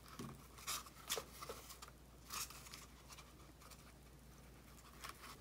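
Faint, soft rustles and light clicks of yarn being pulled and looped over the pegs of a toilet-paper-tube loom, several in the first two seconds or so, then quieter, with one sharper click near the end.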